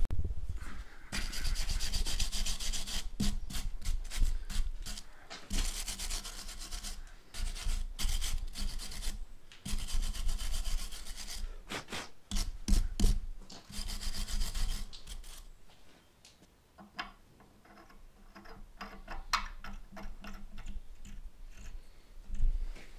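Wire brush scrubbing a hot steel tractor hitch bracket clamped in a vice, in several spells of quick scratchy strokes. The brushing stops about two-thirds of the way through, followed by light metallic clicks as a bolt is tried in the bracket's threaded hole.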